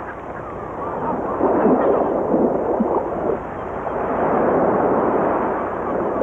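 Shallow surf washing in over a sandy beach, the rush of water swelling twice: about a second in and again around four seconds.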